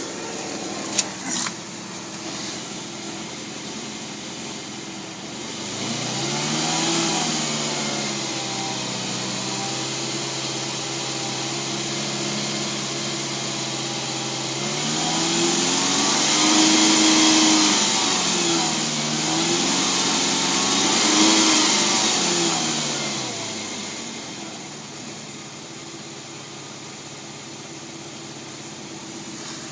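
Ferrari Mondial T's 3.4-litre V8 at a rough idle. Its revs are raised and held, then raised further twice, and it settles back to idle near the end. Two short clicks come about a second in.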